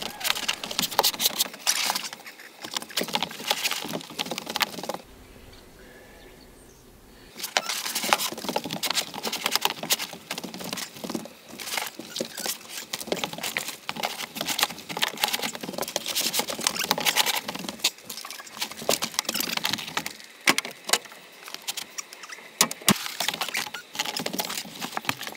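A thick, foam-and-felt-backed vinyl floor sheet is unrolled, dragged and flexed over a plywood floor, giving a dense run of rustles, scrapes and knocks. It goes quieter for a couple of seconds about five seconds in.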